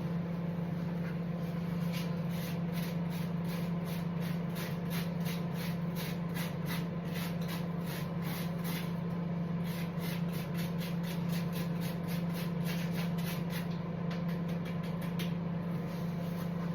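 A knife scraping burnt toast in quick repeated rasping strokes, about three a second, to take off the charred surface. A steady low hum from an appliance runs underneath.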